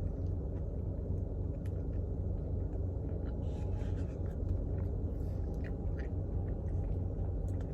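A steady low rumble with a few faint scattered clicks.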